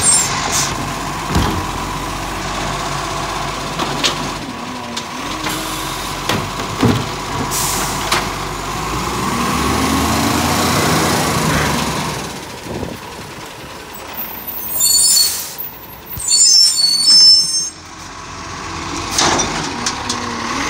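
Side-loading garbage truck idling while its hydraulic arm works, the engine revving up and back down as the arm lifts a wheelie bin. A couple of short, loud bursts of noise come near the end.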